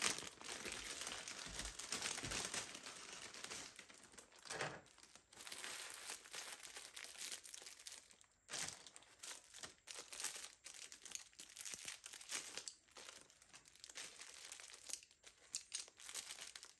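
Clear plastic packaging crinkling and rustling as a set of makeup brushes is unwrapped and handled, in faint, irregular bursts of rustle.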